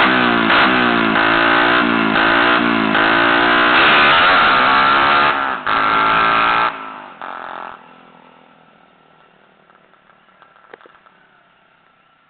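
Tuned Yamaha MX 135 single-cylinder four-stroke drag-bike engine at full throttle, its pitch rising and dropping back again and again as the bike accelerates away. The sound is loud until about seven seconds in, then falls away to faint as the bike gets far off.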